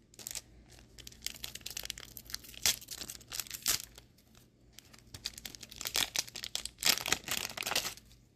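Crinkly plastic card packaging being handled and torn, heard as a run of crackling rustles that are loudest about six to eight seconds in.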